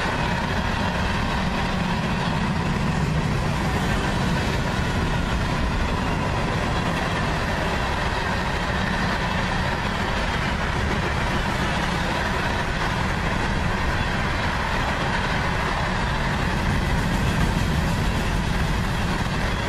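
Freight train of loaded-length hopper cars rolling past at speed: a steady, loud rumble and clatter of steel wheels on rail that holds unbroken.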